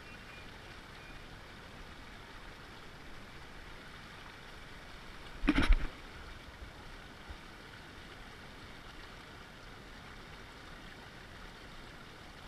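Steady rush of river water around a small pontoon boat, with one brief loud thump a little over halfway through.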